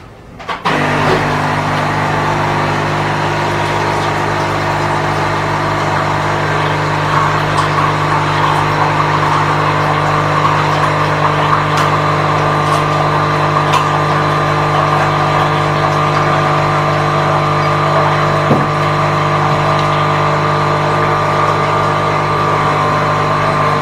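Capsule coffee machine's pump running with a steady hum as it brews into a glass, starting about a second in and cutting off at the very end.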